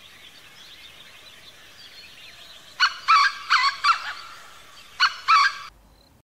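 A bird, a fowl-type bird, calling loudly in two bursts of short squawks, over faint chirping in the background. The sound cuts off abruptly near the end.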